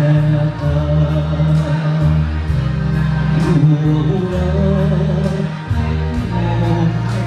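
Man singing a Thai song into a microphone over amplified backing music with a deep bass line and a steady beat.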